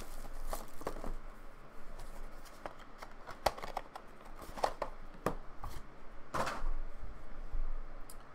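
Hands unwrapping a trading-card box: paper and plastic packaging rustling and crinkling, with irregular clicks and taps as the encased card is slid out, and a longer, louder rustle about six seconds in.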